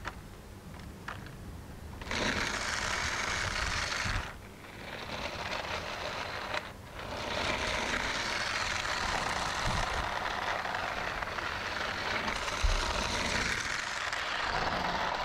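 Battery-powered toy RC trucks' small electric motors and plastic gearboxes whirring under load as the two trucks pull against each other on a tow rope. The whirring starts about two seconds in, drops away briefly twice, then runs on.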